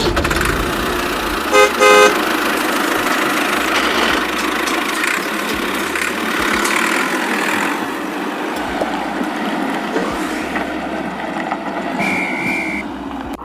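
Steady motor running, with a short double horn toot about two seconds in and a brief high beep near the end.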